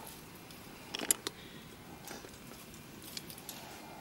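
Faint handling noises: a few short clicks and rustles about a second in and again near three seconds in, over a low background hiss.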